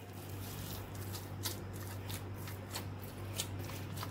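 Hands punching down and kneading soft, sticky risen yeast dough in a glass bowl: irregular soft clicks and handling noises, over a steady low hum.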